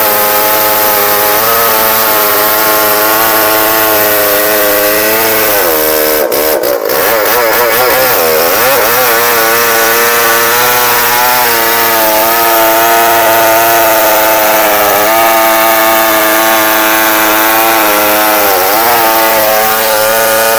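Two-stroke chainsaw in a chainsaw mill running at full throttle while ripping a log lengthwise into slabs. Its pitch wavers and dips for a few seconds about a third of the way in as the load on the chain changes, and dips briefly twice more later.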